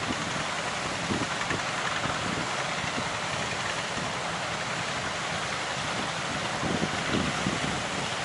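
Steady rushing of strong wind and breaking waves, with gusts buffeting the microphone in short low thumps.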